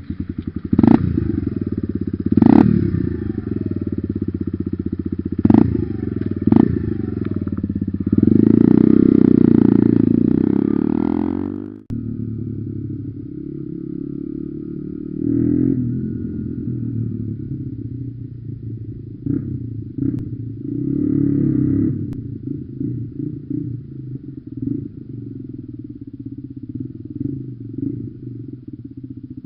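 Lexmoto Adrenaline 125cc single-cylinder motorcycle through a loud Lextek CP1 aftermarket exhaust, idling with sharp throttle blips that fall back to idle. About eight seconds in it is held at high revs for a few seconds and cuts off suddenly, then idles on with a few lighter blips.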